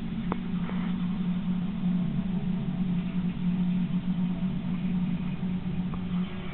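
A steady low mechanical hum that dies away near the end, with a few faint clicks.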